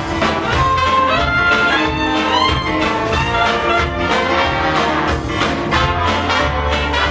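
Instrumental music from an audio demo of a sheet-music arrangement: a brass-led melody over band accompaniment with bass and a steady beat.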